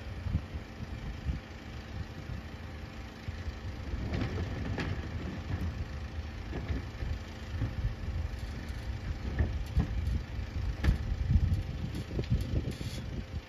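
Rear-loading garbage truck idling with a steady low engine rumble and faint hum. Occasional short knocks and rattles come from wheelie bins being wheeled up to it, the clearest about five seconds in and twice more near the end.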